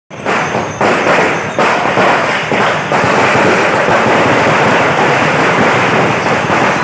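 A string of firecrackers going off in a loud, continuous rapid crackle, growing louder over the first couple of seconds.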